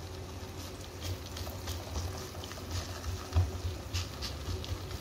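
Aloo paratha frying on a hot, oiled tawa: irregular crackles and pops of oil under the dough, with a hand pressing it flat on the griddle.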